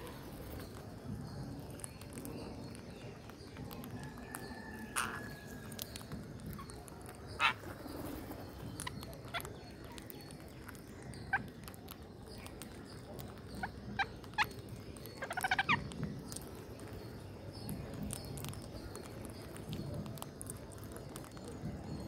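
Rose-ringed parakeets giving short, sharp, scattered calls, with a quick chattering run of notes about fifteen seconds in, over a low steady background noise.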